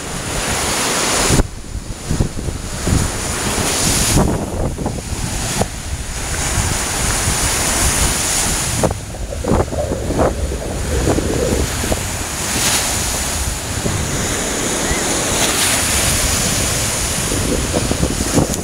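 Lake Michigan surf breaking and washing onto a sandy beach, a continuous rushing with swells rising and falling. Strong wind gusts buffet the microphone, adding a fluctuating low rumble.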